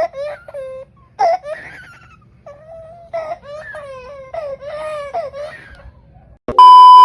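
A baby crying in a series of wailing cries. Near the end, a loud, steady bleep tone cuts in.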